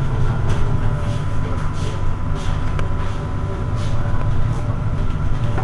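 Irizar i2e battery-electric bus standing at a stop, giving a steady low hum and a thin steady high tone from its running equipment. A few faint clicks come through now and then.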